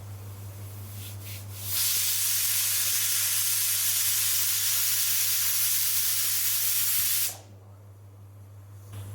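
Pressure cooker whistle: two short faint puffs, then a loud steady hiss of steam escaping past the weight valve for about five and a half seconds, cutting off suddenly as the valve reseats.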